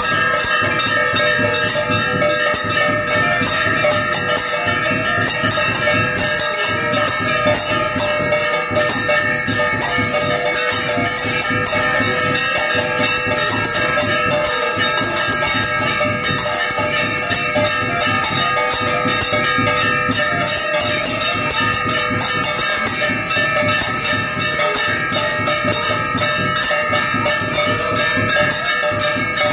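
Temple bells ringing without pause during an arti. Several steady bell tones hang over a dense, continuous jangle.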